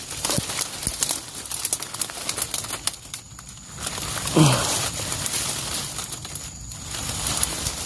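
Dry leaf litter and twigs crackling and rustling as a hand pulls a long-tailed macaque's body out of the undergrowth. About four and a half seconds in, a short low sound falls in pitch; it is the loudest moment.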